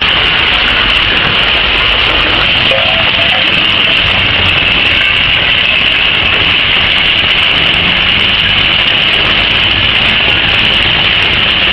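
Heavy machinery running steadily: a loud, unbroken mechanical noise with a low hum underneath.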